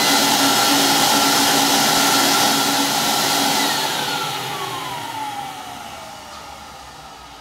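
Central vacuum power unit motor running at full speed with a steady high whine, then winding down from about three and a half seconds in, its whine falling in pitch as it spins down.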